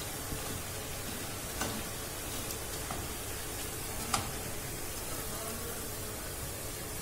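Boondi, small drops of gram-flour batter, frying in hot sunflower oil: a steady sizzle with occasional clicks, the sharpest about four seconds in.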